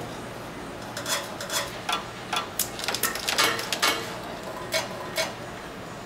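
A run of sharp, irregular clicks and clacks over a steady low hum as a partly taped automotive wiring harness, with its connectors, is handled and knocked against the taping machine and bench.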